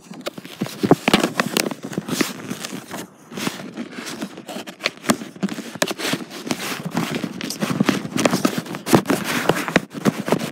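Close rustling, scraping and clicking on the phone's microphone: handling noise as the phone is moved and something brushes over it.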